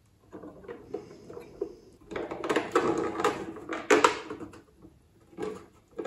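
Hard plastic model-kit deck sections being pressed and shifted into a ship hull by hand: a run of rubbing, scraping and small clicks and knocks, busiest and loudest from about two to four seconds in, then a few lighter knocks.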